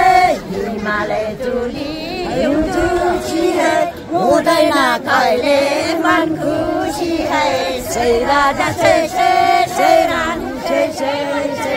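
A group of women singing a Nepali folk song together in held, gliding lines.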